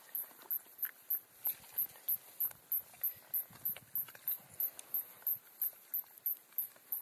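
Tussock cicada chirping steadily, short high-pitched chirps at about three a second, with faint clicks of a knife working on a fish.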